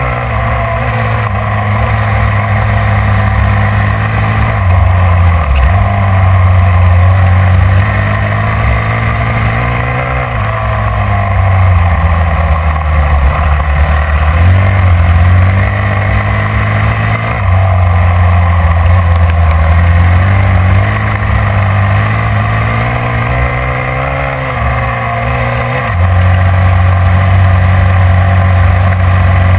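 Snowmobile engine heard from on board at speed, the throttle opening and easing off in turn every few seconds. Steady wind rush runs under it.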